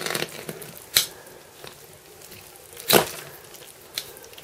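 A kitchen knife cutting and scraping through a crisp, toasted rice crust on a plastic chopping board. There are sharp knocks about a second in and about three seconds in, the second one the loudest, and a smaller one near the end.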